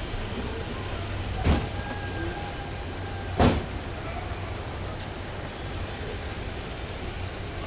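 Steady running drone of a road vehicle with a low hum, broken by two sharp knocks about two seconds apart. A faint held tone sounds briefly between the knocks.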